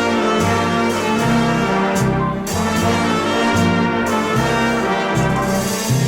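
A brass-led dance orchestra playing: massed brass over a bass line that changes note about twice a second.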